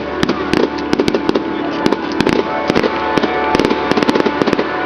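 Fireworks display going off: a dense, irregular run of sharp pops and bangs, many every second.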